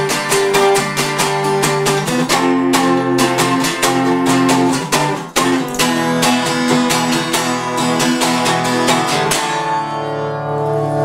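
Two acoustic guitars strummed together in a fast, even rhythm, playing an instrumental passage. Near the end the strumming stops and a chord rings out.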